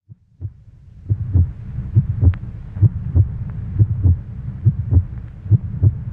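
Heartbeat sound effect: paired lub-dub thumps at a steady pace of a little over one beat a second, over a low steady rumble, beginning after a brief quiet start.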